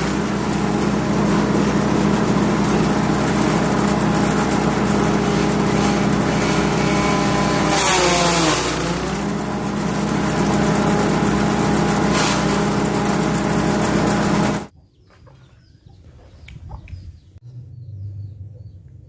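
A 5.5 HP petrol engine driving a grass chopper runs steadily, its speed sagging briefly about eight seconds in and then recovering, with brief surges of rushing noise. Near the end the machine sound cuts off abruptly, leaving faint outdoor background with small bird chirps.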